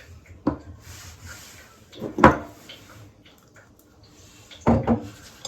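Kitchenware being handled: three separate knocks and clatters, the loudest about two seconds in.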